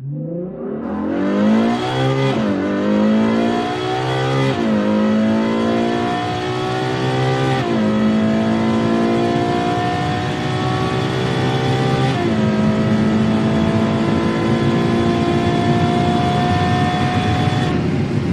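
Ferrari engine accelerating hard through the gears. The pitch climbs steadily and drops sharply at each of four upshifts, and each gear takes longer to climb than the last.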